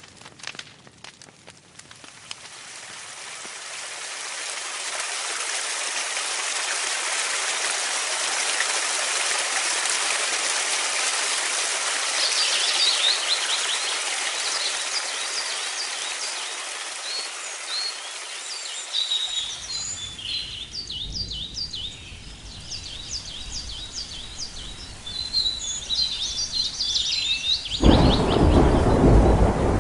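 Rain falling steadily, swelling over the first few seconds, with birds chirping from about twelve seconds in. Low rumbles of thunder come in after about nineteen seconds, and a louder burst of thunder comes near the end.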